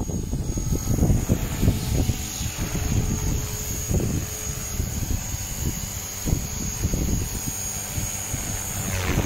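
RC stunt helicopter in flight, its rotors and motor giving a steady high whine that dips briefly in pitch near the end. Under it runs an uneven low buffeting on the microphone.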